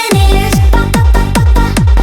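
Electronic dance music: a heavy kick drum beat comes in at the start, under sustained synth chords.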